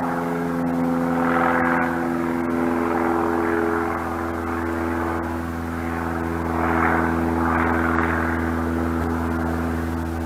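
A steady drone of several held low tones with a hiss above them, starting and stopping abruptly.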